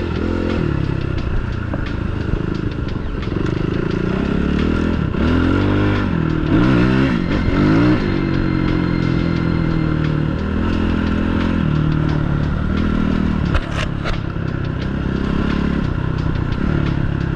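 Suzuki RMX450's single-cylinder four-stroke engine heard from on the bike while riding a trail, its revs rising and falling repeatedly with throttle and gear changes. Gravel and stones clatter under the tyres.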